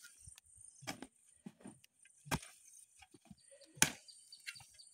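Hand hoe chopping into soil while building a ridge: three main dull strikes about a second and a half apart, with fainter knocks and scrapes of earth between them.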